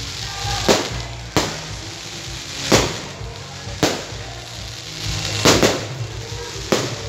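Aerial fireworks bursting overhead, about seven sharp bangs a second or so apart, two of them in quick succession about five and a half seconds in.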